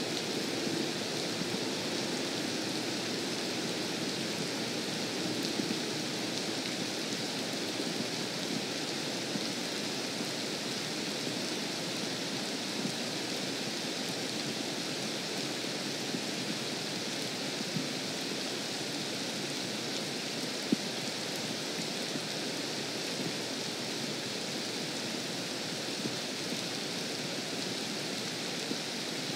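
Steady rain falling on a lake's surface, an even hiss with no change in strength, broken once by a single sharp click about two-thirds of the way through.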